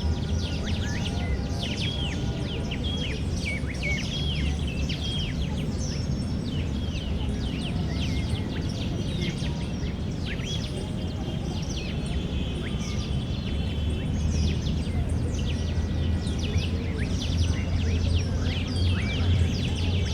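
Park ambience: many small birds chirping and calling in quick short notes, with a longer high trill about two-thirds of the way in, over a steady low background rumble.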